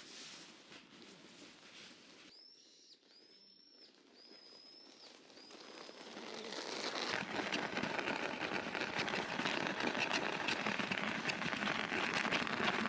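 A bird calling four times, each a thin high whistled note about half a second long, over quiet forest air. About six seconds in, a rushing noise with fine crackles swells up and carries on to the end.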